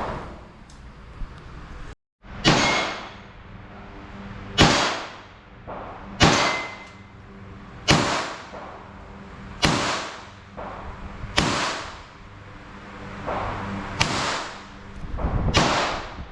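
Handgun shots fired one at a time, about eight in all, each a sharp crack with a short echo, spaced a little under two seconds apart. Loud for a handgun.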